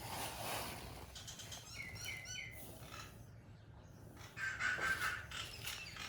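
Short high-pitched animal chirps, a few curving squeaks about two seconds in, then a louder squeal near the end.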